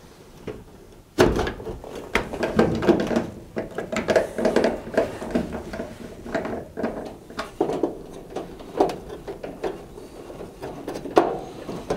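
Tumble dryer's sheet-metal side panel being fitted back onto the cabinet: a sudden clunk about a second in as it goes on, then a run of irregular knocks and scrapes of metal against metal as it is seated and a screwdriver works at its fixings.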